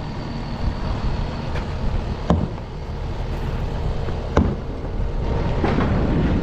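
A steady low engine rumble, with two sharp knocks about two and four seconds in.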